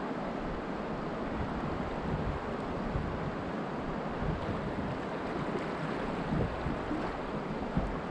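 Steady rush of a shallow river's current flowing over a riffle, with a couple of soft low bumps near the end.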